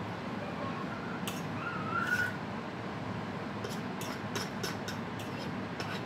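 A fork clicking and scraping against a ceramic salad bowl, a quick run of light clicks in the second half, over a steady low background hum. A short high squeak that wavers up and down comes about two seconds in.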